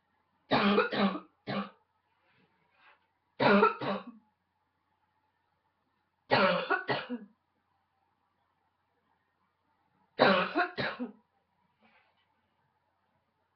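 A woman's barking cough, coming in four fits of two or three harsh coughs each, a few seconds apart.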